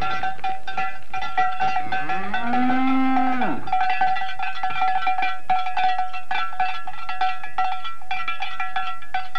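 A Swedish mountain cow (fjällko) moos once, about two seconds in, with a call that rises, holds and falls. Cowbells ring and clank steadily throughout.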